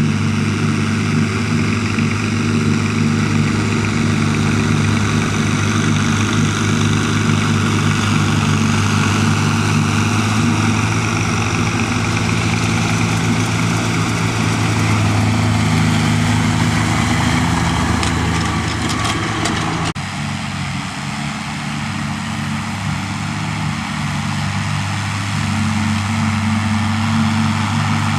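Farm tractor engines running steadily under load during silage harvesting. About two-thirds of the way through, the sound changes abruptly and becomes a little quieter.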